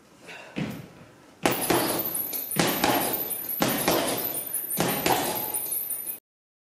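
Boxing gloves striking a hanging heavy bag in repeated jab-cross punches, with the thuds of squat-jump landings, a string of sharp impacts over a noisy gym background. The sound cuts off suddenly near the end.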